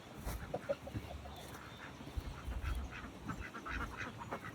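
Farm waterfowl calling in the background: a run of short, repeated calls, thickening over the second half, over a few low thumps.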